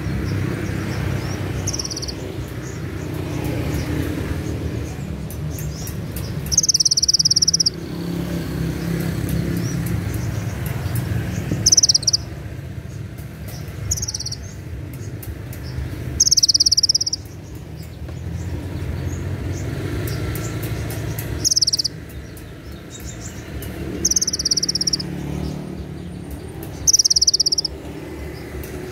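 Male kolibri ninja (purple-throated sunbird) singing about eight short, shrill high trills a few seconds apart: the sharp 'cililin shot' phrases of its song. A steady low rumble runs underneath.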